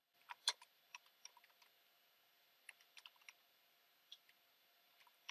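Faint keystrokes on a computer keyboard: a scattered run of short, irregular clicks as a short terminal command is typed.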